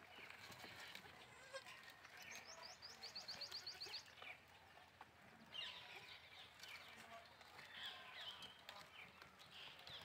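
Faint small birds chirping throughout, with a quick trill of about a dozen rapid notes a little after two seconds in, among occasional goat bleats.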